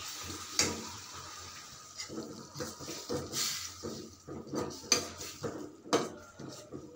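Steel spoon stirring Maggi noodles in a steel kadhai, scraping and clinking irregularly against the pan's sides and bottom, with a few sharper knocks near the end.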